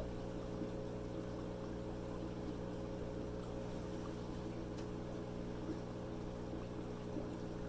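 Steady hum of a Tetra Whisper 30-60 diaphragm aquarium air pump, with air bubbling up through the water from a sponge filter.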